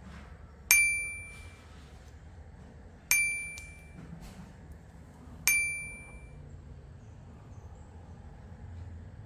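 Three identical bright metallic dings about two and a half seconds apart, each struck sharply and ringing out briefly with a clear pitch.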